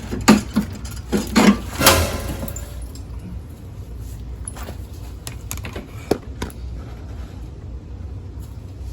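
A quick run of metallic clinks and knocks from hand tools and mower parts, the sharpest about two seconds in with a short ring, then a few faint scattered clicks over a steady low background hum.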